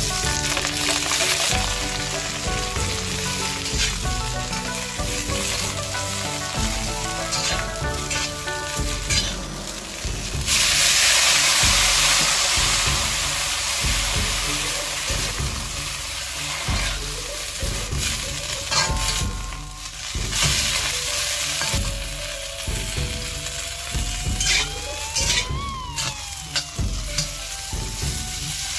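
Food frying and being stirred in hot oil in a pan, with a loud burst of sizzling starting suddenly about ten seconds in and then settling to a lighter sizzle.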